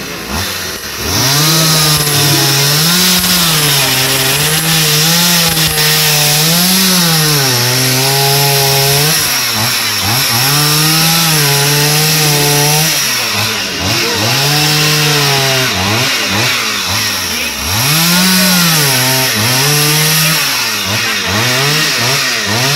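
Stihl two-stroke chainsaw carving into a wooden stump. The engine goes up to speed about a second in, then its pitch rises and dips again and again as the chain bites into the wood and the throttle is worked.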